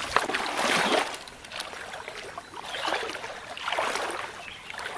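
Water splashing and sloshing in several swells, each lasting under a second, with the loudest in the first second. A sharp click comes right at the start.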